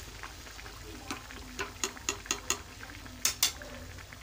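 Bread pakora deep-frying in hot oil, sizzling steadily. In the middle there are quick clicks and short squeaks as a slotted steel spoon scoops loose fried batter bits and knocks against the pan, with two louder clicks a little past three seconds in.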